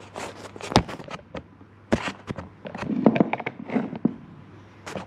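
Irregular knocks, clicks and rustling from a camera being handled and set down on a workbench, over a faint steady hum.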